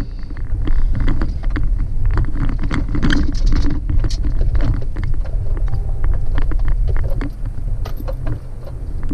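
Cabin noise of a Chevrolet Colorado ZR2 pickup driving over rutted sand dunes: a steady low rumble of engine and tyres, with many sharp clicks and rattles from the cab as it bounces over the ruts, busiest in the first half.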